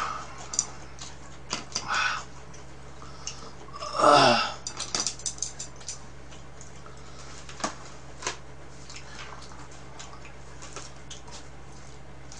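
Table eating sounds: chopsticks clicking against dishes and plastic containers, scattered throughout over a steady low hum. About four seconds in comes the loudest sound, a short vocal sound that falls in pitch.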